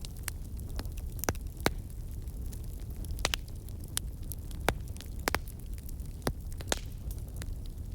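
Campfire of burning wood logs crackling, with irregular sharp pops over a steady low rumble.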